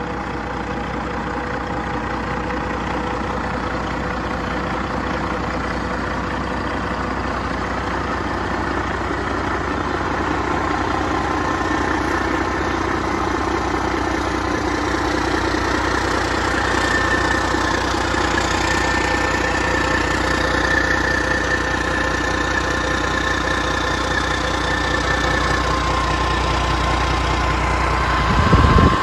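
Detroit Series 60 12.7 L DDEC-4 inline-six diesel, warmed up, idling steadily on a run stand. A high turbocharger whine comes in over the second half, and a brief low thump comes near the end.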